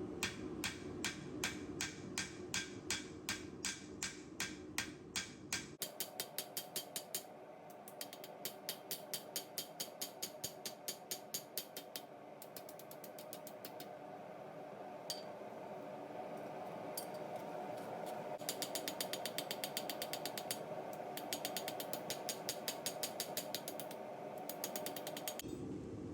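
Hand hammer striking the hot steel of a forged file blank on an anvil in a steady rhythm, about three blows a second, in runs with short pauses: bevels being forged into the blade.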